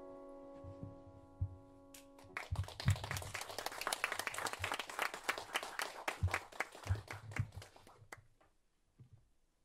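A held electric keyboard chord fades and stops about two and a half seconds in. A small audience then applauds for about five seconds before the clapping trails off.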